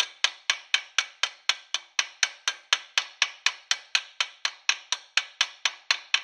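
Ball peen hammer striking a rivet in quick, even taps, about four a second, each with a short metallic ring. It is upsetting the rivet, mushrooming its head out to close a riveted joint in mild steel sheet.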